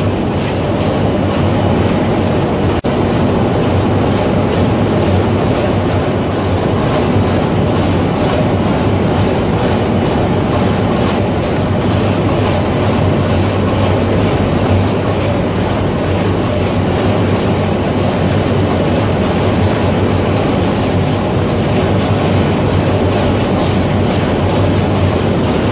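Main engine of a large container ship, a low-speed two-stroke marine diesel, running at full sea speed, heard from its platforms in the engine room. It makes a loud, steady machinery din with a low hum and a fast, even clatter throughout.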